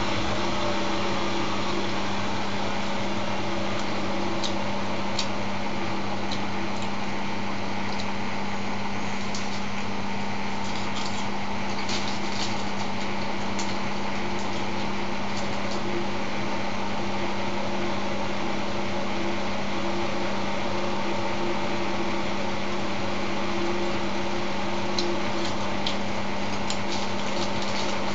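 Siemens Siwamat iQ front-loading washing machine running mid-wash: a steady motor hum with a noisy wash of water in the drum and faint scattered ticks.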